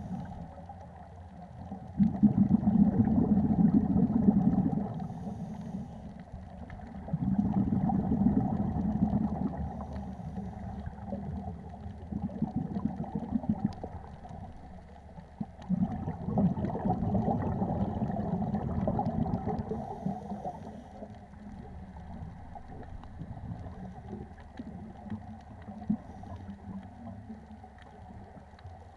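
Scuba regulator exhalations underwater: bursts of bubbles rumbling past the camera for a few seconds at a time, about two seconds in, about seven seconds in, and a longer one from about fifteen seconds in, with a quieter steady underwater hiss between them.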